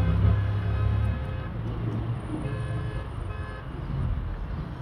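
Motorcycle taxi running along a road with wind on the microphone. A strong low engine rumble fills the first second or so, then gives way to rushing road and traffic noise.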